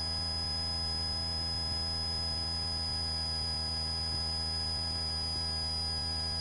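Steady electrical hum with a thin, unchanging high whine over faint hiss: the noise floor of the cockpit audio feed, with no voices and no engine sound coming through.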